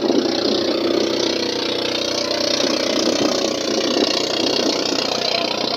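Small boat engine running steadily at an even speed.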